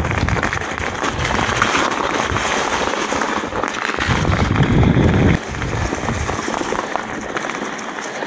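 Mountain bike rolling fast down a dirt trail: a dense crackle of tyres over stones and grit and the bike rattling. A heavy rumble of wind on the microphone swells and cuts off suddenly about five seconds in.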